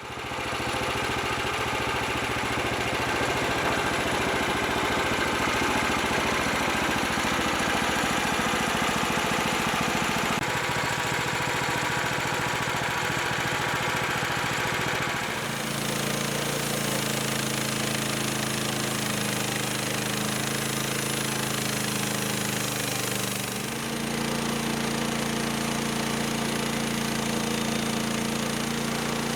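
Engine-driven manual bandsaw sawmill running steadily. About halfway through the sound changes: the hiss fades and a steadier, lower engine hum takes over.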